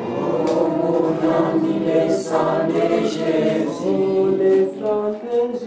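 A congregation singing a hymn together without instruments: many voices in unison and harmony, steady throughout.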